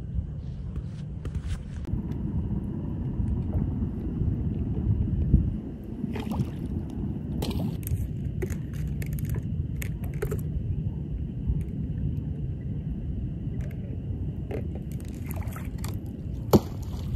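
Water sloshing and splashing around a hunter's waders as he moves among floating duck decoys, over a steady low rumble. Clusters of short splashes come in the middle and near the end, then one sharp splash as a tossed decoy lands.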